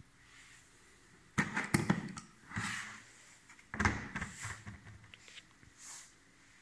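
Packaging and a case being handled and opened: several sharp knocks and clatters, the loudest about a second and a half in and again about four seconds in, with short rustles in between.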